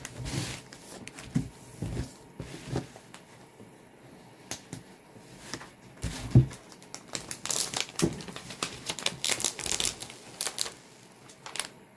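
Stiff diamond-painting canvas with its plastic cover film being handled and pressed flat: irregular crinkling and crackling, with a thump about six seconds in and a denser run of crinkles from about seven to ten seconds.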